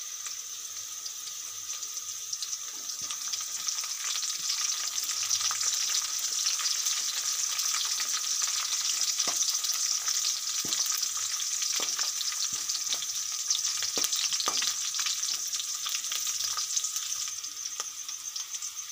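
Onions, green chillies and curry leaves sizzling in hot oil in a kadai, the frying getting louder a few seconds in. The mixture is stirred, with occasional scrapes and taps against the pan.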